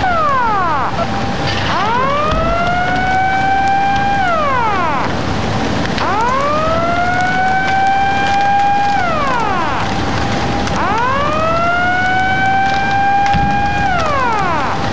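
Outdoor public warning siren sounding for a major tsunami warning: three long wails, each rising in pitch, holding, then falling away, about every four and a half seconds, over a steady rushing noise.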